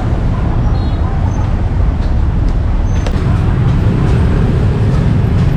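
Steady low rumble of street noise, with faint voices and a few light clicks.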